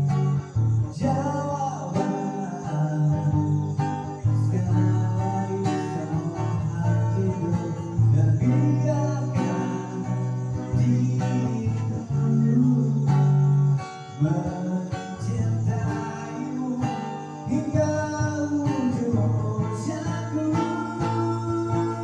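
Acoustic guitar strummed in chords with a voice singing a melody over it.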